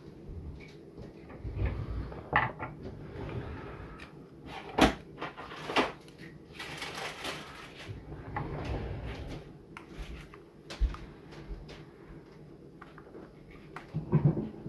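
Scattered clicks, knocks and scraping of a screwdriver working inside a metal microphone body, trying to force out a stuck screw. The sharpest click comes about five seconds in.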